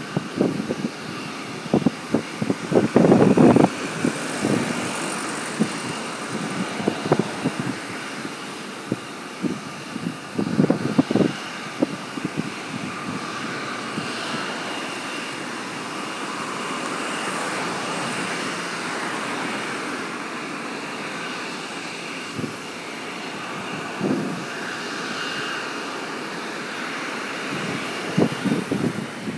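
Distant jet airliner on the apron giving a steady whine, with irregular low buffeting on the microphone about three seconds in, around ten seconds in and near the end.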